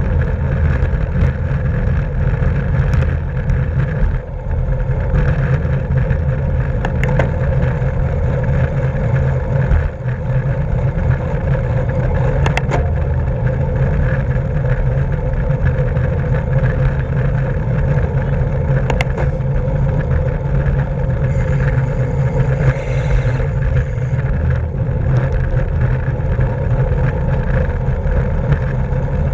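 Wind rushing over the microphone of a camera riding on a racing bicycle at speed, a steady loud rumble with tyre and road noise, broken by a few sharp clicks.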